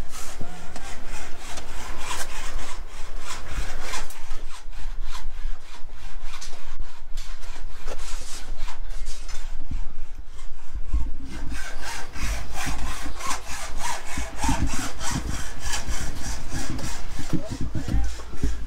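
Hand sawing: a steady run of rapid, rhythmic rasping strokes, busier and stronger in the second half, with irregular low rumbling bursts underneath.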